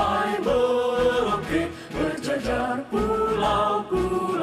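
Music: a woman's voice singing a melody with instrumental accompaniment.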